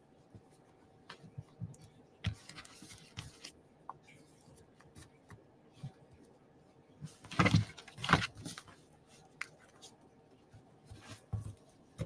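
Faint handling sounds: soft taps and rustles as foil-wrapped candies are set into a small cardstock treat box, with a louder stretch of paper being handled about seven to eight seconds in.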